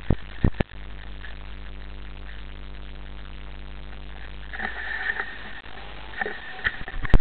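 A bike bumping over rough grass, heard through its action camera: a steady low rumble with sharp knocks about half a second in and loud knocks at the end, and a thin high whine that comes and goes from about halfway.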